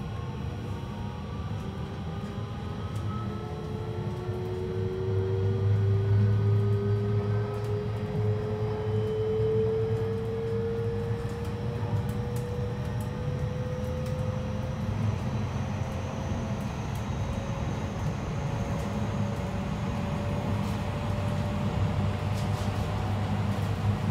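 Mitsubishi IGBT three-level VVVF inverter on a JR West 223 series 2000 electric train, heard inside the passenger car as the train accelerates away from a station. Its so-called tornado-type whine climbs slowly in pitch in several tones over a steady low rumble from the motors and wheels, and grows louder a few seconds in.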